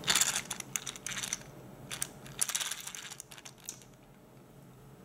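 Plastic crank reel of a toy fishing rod being wound by hand: a fast clicking rattle in several bursts over the first three seconds, with a last click near four seconds.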